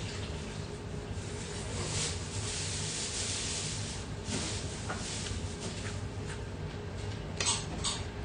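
Ramyeon noodles being slurped from metal chopsticks in a long hissing slurp about two seconds in, then chewing. Near the end come two sharp clicks of the metal chopsticks against the dish.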